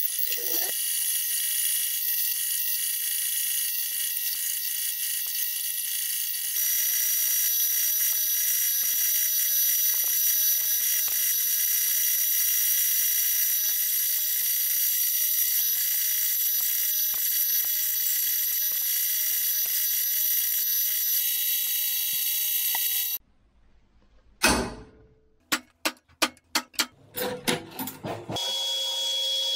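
Metal-cutting bandsaw cutting through 12 mm aluminium plate, a steady high-pitched sound with a few fixed tones, which stops abruptly about three-quarters of the way in. A handful of sharp clicks follow, and near the end another machine starts up with a steady tone.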